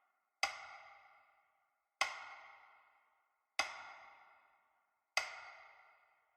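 A struck, ringing note repeated four times, evenly about a second and a half apart, each one sharp at the start and fading away before the next.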